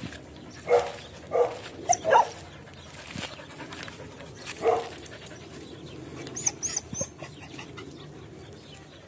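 A dog barking: about five loud, short barks in the first five seconds, then no more barking.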